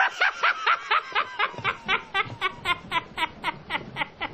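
A laugh used as an intro sound: a rapid, high-pitched run of "ha" syllables, about five a second.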